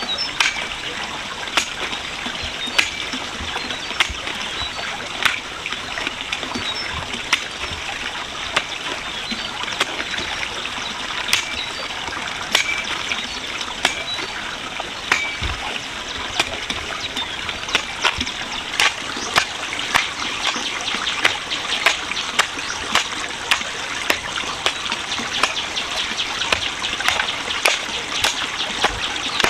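Water trickling and splashing steadily, with sharp clicks or knocks about once a second that come more often toward the end.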